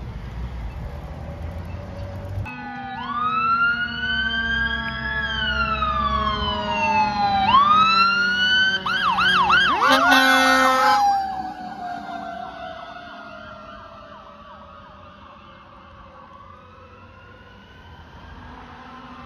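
Fire engine siren sounding a slow rising and falling wail, then switching to a fast yelp as the truck passes at its loudest. It then fades away as the truck moves off.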